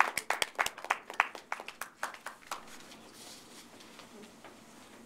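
Applause from a small audience, the claps thinning out and dying away about two and a half seconds in.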